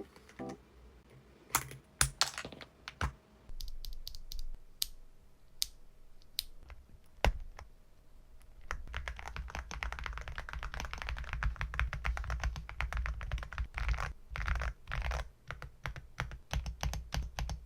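Keystrokes on a Yunzii mechanical keyboard. For the first several seconds they are scattered single key presses, then fast continuous typing starts about halfway through and runs until near the end.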